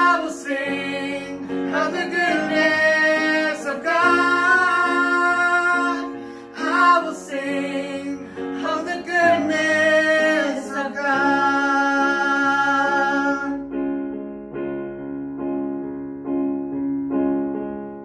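A woman and a man singing a slow worship song together over keyboard accompaniment. The voices stop about three-quarters of the way through and the keyboard carries on alone with sustained, repeated chords.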